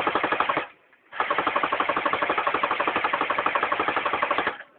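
Electric airsoft gun firing on full auto, a fast, even rattle of about fourteen shots a second. A burst ends about half a second in, and a longer burst of about three seconds starts a second in.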